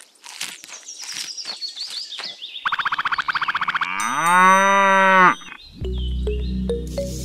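Cartoon-style sound effects for toy cows eating: crackly munching bursts, then a fast rattling trill, then a long cow moo from about four seconds in. Background music with a steady bass starts near the end.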